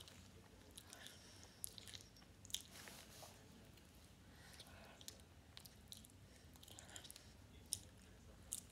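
A person chewing chocolate with the mouth open: faint, irregular wet clicks of the mouth and tongue, a few of them sharper.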